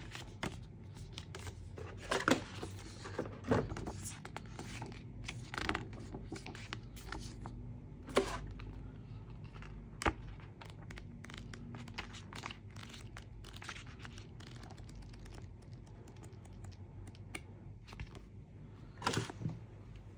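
Packaging being handled and opened: irregular tearing, crinkling and scraping with a few sharp knocks, over a steady low hum.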